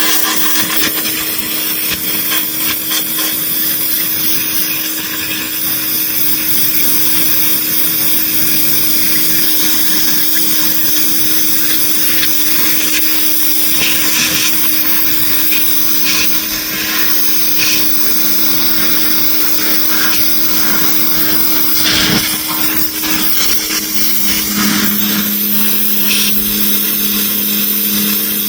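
A power tool running steadily, with a constant hum under a strong high hiss; a second, lower hum comes in about two-thirds of the way through.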